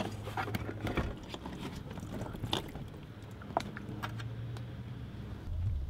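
Scattered plastic clicks and light knocks as a car's windshield washer fluid reservoir and its pump connector and hoses are unclipped and handled, over a steady low hum.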